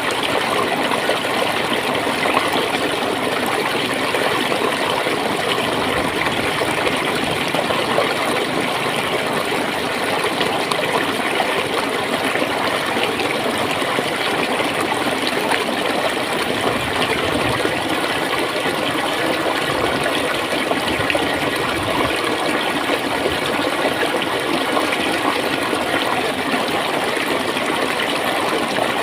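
Flowing water gurgling steadily over a shallow bed.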